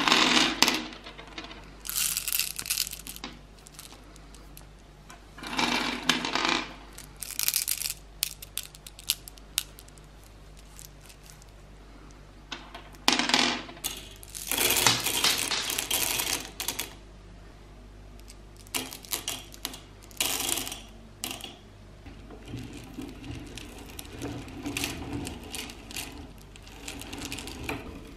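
Handfuls of hard-shelled M&M candies clattering against each other and into the metal hopper of a meat grinder, in several loud bursts of a second or two. Near the end, a quieter uneven crunching as the grinder crushes the candy through its cutting plate.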